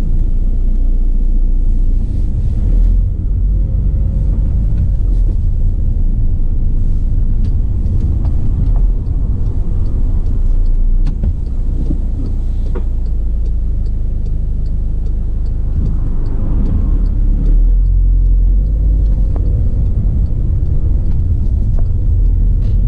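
A 2016 Volkswagen Caddy van's 1.6 engine and road noise heard from inside the cab while driving: a steady low rumble, with the engine's pitch rising and falling as it pulls away and changes speed.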